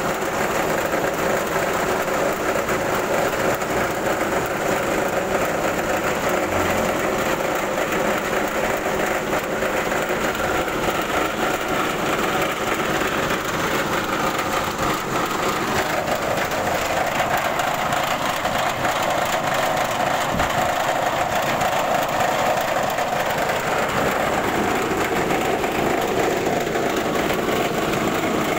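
KD 100 rice milling machine with an added rice-bran sieve running steadily, belt-driven by a small engine while it mills.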